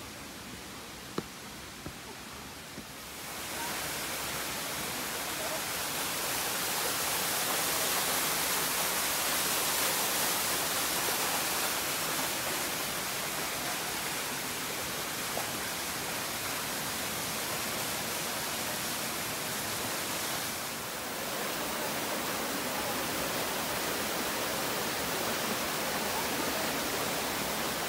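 Rushing water of a mountain stream or small waterfall, a steady hiss that swells about three seconds in and stays loud, easing briefly for a moment past the twenty-second mark.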